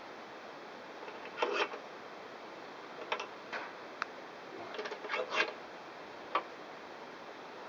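Short creaks and clicks in irregular clusters as a Hope headset's top cup is pressed into a bike frame's head tube with a wooden door-frame vise.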